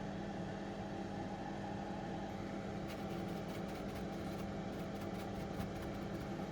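Steady electrical or mechanical hum, with faint sharp ticks coming in about halfway through.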